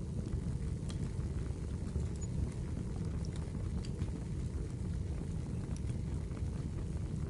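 Wood fire burning in a fireplace: a steady low rumble with a few sharp crackles scattered through it.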